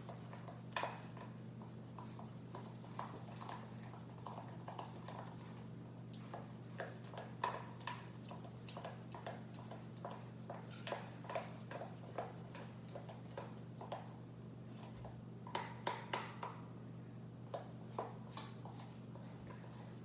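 Irregular light clicks and taps, coming in loose clusters, over a steady low hum.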